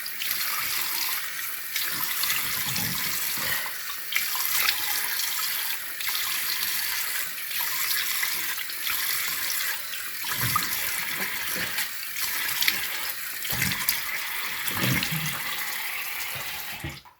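Water running from a tap into a sink while the face is washed with warm water, with irregular splashes. The running water cuts off suddenly near the end.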